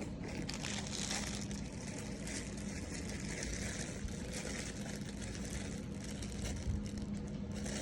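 Plastic packaging rustling and crinkling as Temu packages are handled and opened, a busy continuous crackle over a steady low hum.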